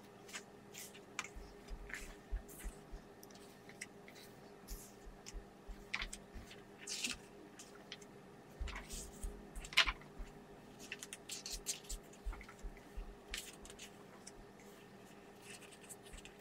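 Pages of a paper photobook dummy being handled and turned: brief rustles and brushes of fingers sliding over the printed photo paper, the loudest page swish about ten seconds in. A faint steady hum lies underneath.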